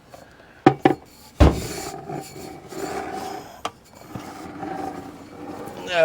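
A stuck, rusty bolt being worked loose and backed out from underneath a car: a couple of sharp metal clicks and a heavy knock, then a few seconds of steady rasping scrape from the threads.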